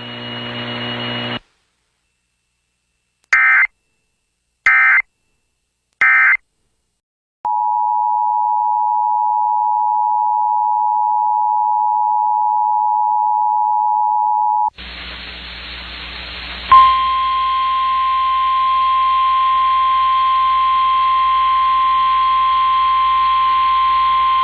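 Emergency alert sequence: three short bursts of digital SAME header data, then the two-tone EAS attention signal held steady for about seven seconds. A second alert then opens with radio hiss and hum, and about seventeen seconds in the single steady NOAA Weather Radio warning alarm tone starts.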